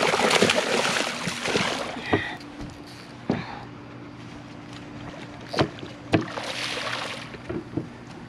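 Water splashing as a hooked snook thrashes at the surface beside the boat while it is netted. The splashing is loudest over the first two seconds, with a shorter bout near the end. Under it runs a steady low hum, and a few sharp knocks sound in between.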